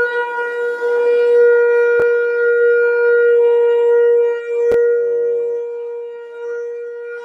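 One long, steady, horn-like tone with overtones, held for about seven seconds and softening near the end, with two sharp clicks over it.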